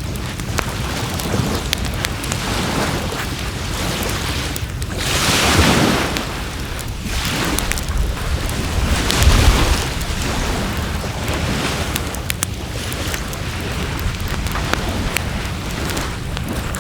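Wood fire crackling with many small sharp pops over a steady rushing noise, which swells loudly about five seconds in and again with a low rumble about nine seconds in.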